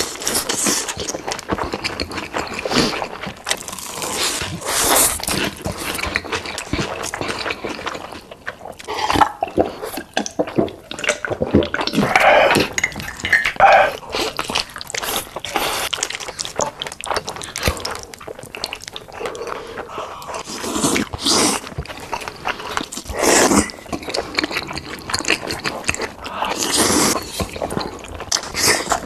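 Close-miked eating sounds: noodles slurped and chewed with wet mouth smacking, in irregular bursts.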